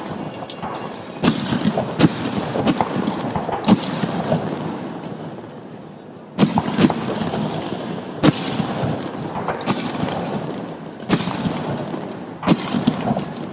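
Aerial fireworks shells bursting: a run of sharp booms, sometimes two or three within a second, each trailing off into a long rolling echo, with a short lull about five seconds in before the bursts start again.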